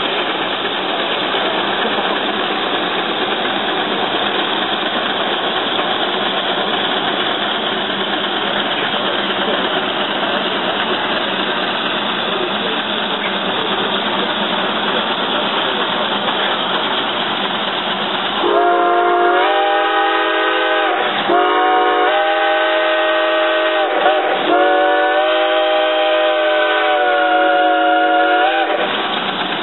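Steam traction engine working hard under load on the pull, a steady rushing exhaust noise. About two-thirds of the way through, its steam whistle blows, a loud steady tone held for about ten seconds with two brief breaks.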